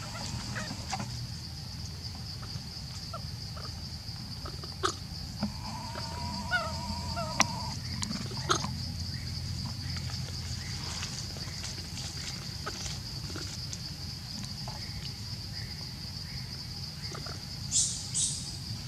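Steady high-pitched insect drone in forest undergrowth, with scattered soft clicks and rustles, a short animal call about six seconds in, and a brief high squeal near the end.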